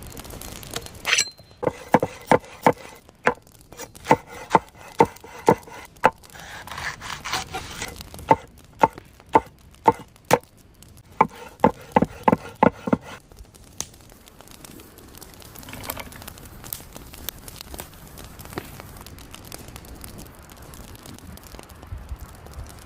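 Knife chopping on a cutting board: runs of sharp, even strikes about two a second for the first half, then quieter handling and rubbing sounds.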